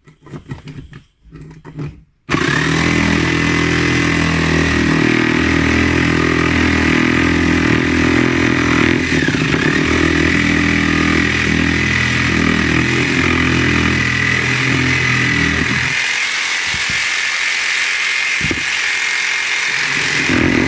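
Small electric jigsaw starting up abruptly about two seconds in, after a few light handling knocks, then running steadily while cutting into the wood of a cricket bat. Its whine dips briefly midway, and the low part of the sound thins out near the end.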